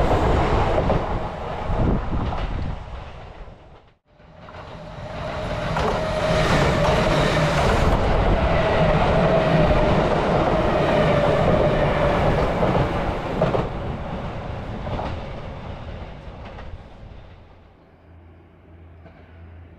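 Electric trains on the Kintetsu Nara Line passing close by. The first pass cuts off abruptly about four seconds in. A second train then comes up and goes by with a steady motor hum over the wheel and rail noise, and fades away near the end.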